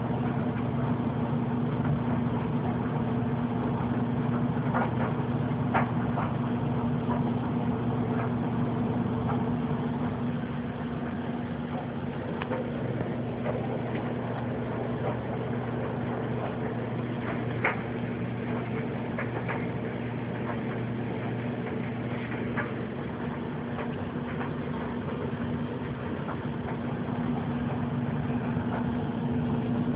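A steady low hum, even throughout, with a few faint clicks.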